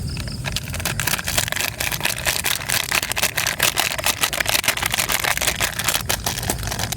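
Dense, irregular crackling and popping from a cooking fire and the pot over it, several clicks a second over a low rumble.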